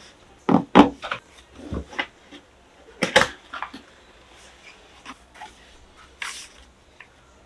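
Handling sounds of a keyboard box and its packaging being opened: a string of knocks and thuds, the loudest about three seconds in, then a few fainter clicks.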